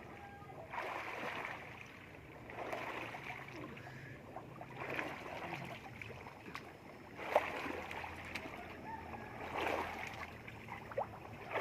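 Water splashing and sloshing in repeated swells, roughly every two seconds, with a single sharp knock about seven seconds in.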